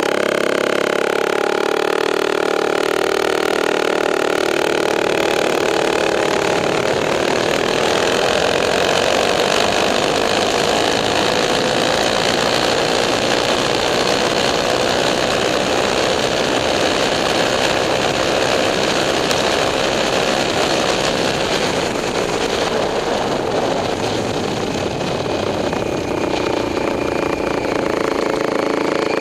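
Rupp minibike's small engine running under way. Its pitch climbs over the first several seconds as the bike speeds up, holds steady, eases off about three-quarters of the way through, then picks up again near the end.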